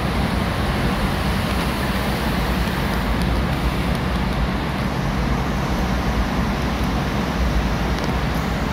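Steady road noise heard from inside a moving car's cabin: a low tyre and engine rumble with an even hiss, unchanging, while driving through a road tunnel.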